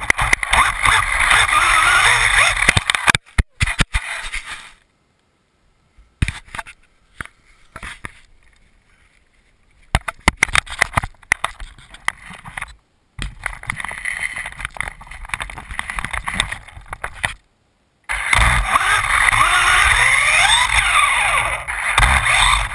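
Losi Mini 8ight RC buggy running indoors: its electric motor whines in rising and falling glides as the throttle changes, with tyre and chassis scraping on the floor. The sound drops out to near silence a few times, with quieter clicks and bumps in between.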